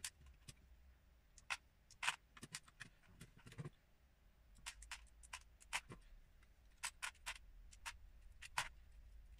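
Lego bricks being pulled apart by hand and dropped into a plastic tub: scattered, irregular small sharp clicks and snaps.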